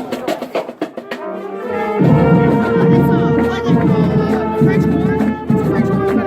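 Background music: light ticking percussion at first, then louder from about two seconds in, with long held notes over a steady beat.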